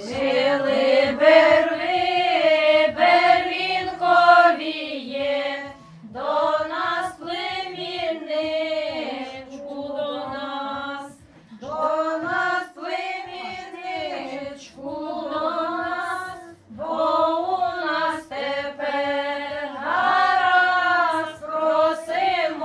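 A group of women singing a Ukrainian folk wedding song unaccompanied, in phrases of about five seconds broken by short pauses for breath.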